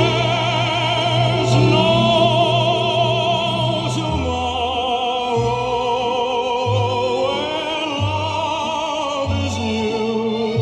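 Orchestral music with an operatic lead sung with wide vibrato, played from a vinyl LP on the Panasonic SD-85 record player stereo through its speakers; a bass line moves note by note in the second half.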